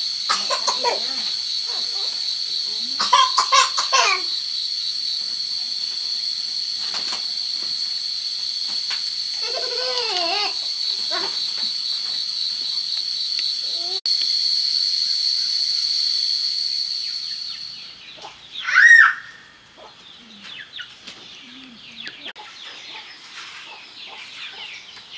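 Chickens clucking and calling over a steady, high-pitched insect drone. The drone fades out about two-thirds of the way through, and a single loud call comes soon after.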